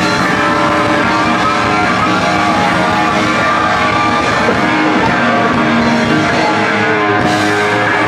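Hard-rock band playing live at a steady loud level, with distorted electric guitar lines over drums and bass.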